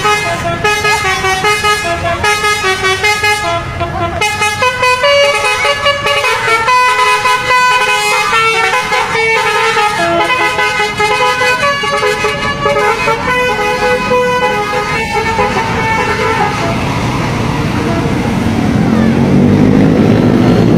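Telolet basuri musical horn on a tour bus playing a rapid tune of changing notes, then stopping about sixteen seconds in, leaving vehicle noise.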